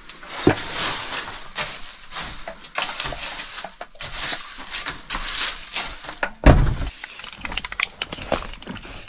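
Dry leaves rustling and scraping as they are cleared out of a hunting blind, with knocks against the blind; a small knock about half a second in and a heavier thump about six and a half seconds in.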